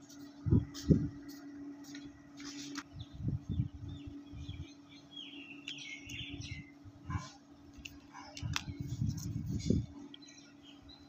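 Birds chirping in the background, mixed with low thuds and knocks from hands handling a matchbox toy close to the microphone; a steady low hum stops about three seconds in.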